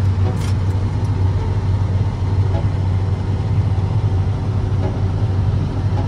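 Steady low drone of a John Deere X9 combine's engine and threshing machinery running while harvesting, heard from inside the cab.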